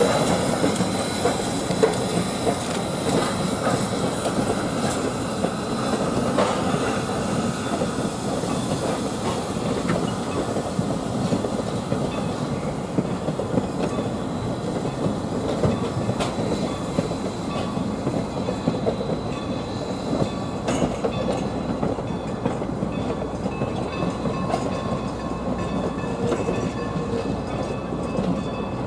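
Passenger coaches of a steam train rolling past close by behind Norfolk and Western steam locomotive No. 475: a steady rumble of wheels on rail with scattered clicks over the rail joints.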